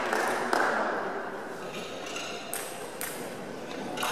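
A few separate light clicks of a plastic table tennis ball bouncing, spread out over several seconds and echoing in a large hall.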